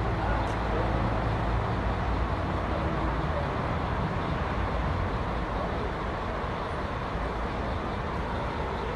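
Steady low rumble and hiss of outdoor background noise, the rumble easing a little after about four seconds.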